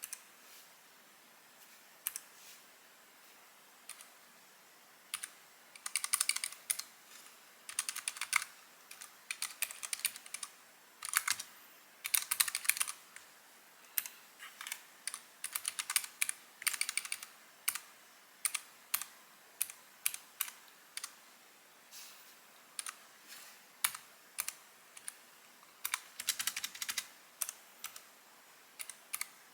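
Typing on a Keychron K3 Version 2 ultra-slim mechanical keyboard with optical red switches, which are linear and not clicky. A few single keystrokes come first, then runs of quick typing broken by short pauses.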